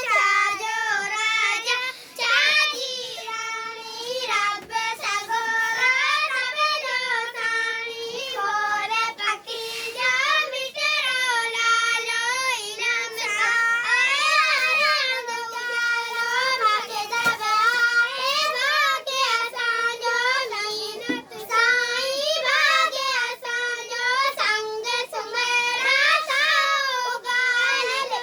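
Young girls' high voices chanting a poem together in a continuous sing-song melody.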